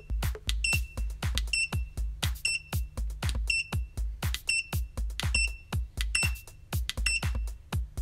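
Electronic background music with a steady bass beat, overlaid with about a dozen short, high electronic beeps, one every half second or so. The beeps fall in time with the button presses that enter each step of the robot's program.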